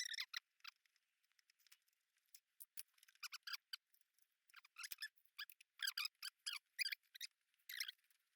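Faint, scattered small clicks and rustles of hands working a motorcycle's plastic wiring connectors apart, coming in quick clusters through the second half.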